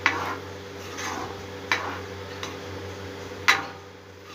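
Metal spoon knocking and scraping against the pan while stirring a thick curry: a few sharp strokes, the loudest about three and a half seconds in, over a steady low hum.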